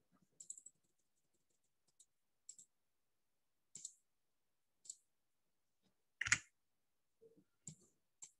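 Computer mouse clicking: about seven faint, scattered clicks roughly a second apart, with one louder, fuller click a little after six seconds in.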